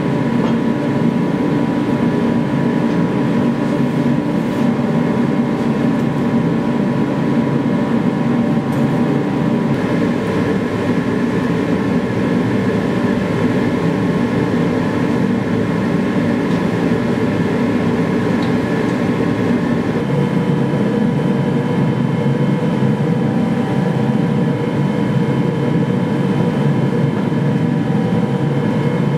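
Multi-burner gas forge running with a steady rushing noise and a few faint steady tones, heating a cutlass blade for hardening.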